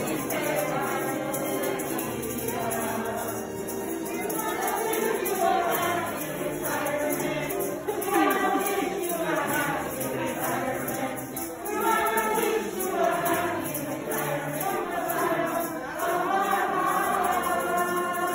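A small group of people singing a song together from song sheets.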